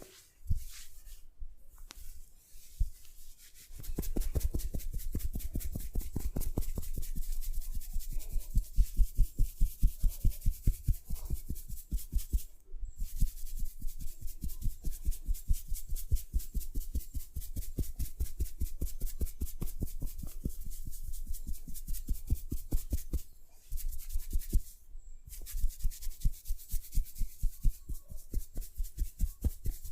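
Head massage strokes rubbing over hair and scalp in a fast, even rhythm of several strokes a second, starting about four seconds in, strongest a little later and pausing briefly twice.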